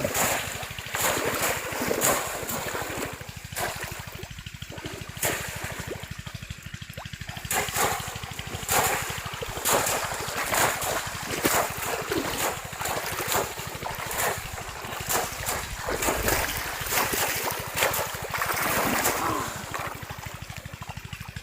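Shallow river water splashing in short, irregular strokes, roughly one or two a second, over a running rush of water.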